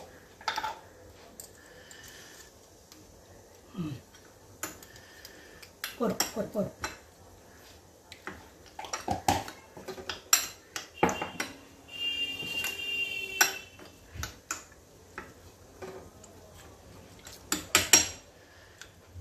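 Cutlery clinking and scraping against plates and dishes in irregular knocks, with a short ringing tone a little past the middle.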